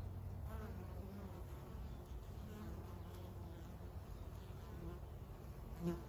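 Honey bees buzzing at the hive entrance, a steady low hum of wings, with one brief louder buzz near the end.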